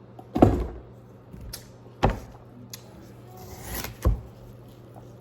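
Knife chopping watermelon on a cutting board: three heavy thuds about two seconds apart, with lighter knocks and a brief scrape between them.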